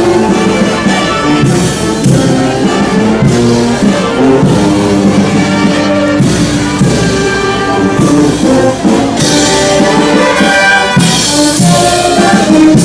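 Brass band playing processional music, trumpets and trombones carrying the tune, with a percussion crash about every one and a half to two seconds.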